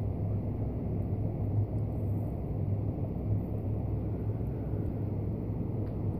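Steady loud low hum and rumble of unidentified origin, sounding like a helicopter or several trucks on a highway far off, with no rise or fall in level.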